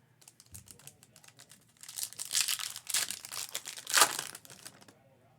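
Foil wrapper of a Topps Chrome trading-card pack crinkling as it is torn open and crumpled. A few light ticks come first, then a dense crackle, loudest about four seconds in.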